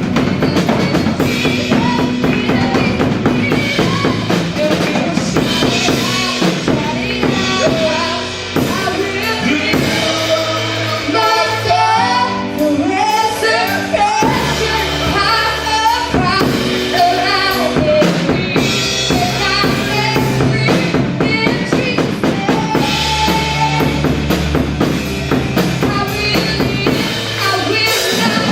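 Live gospel worship band playing: drum kit with bass drum and snare keeping a steady beat under bass guitar and keyboard, with a voice singing over it.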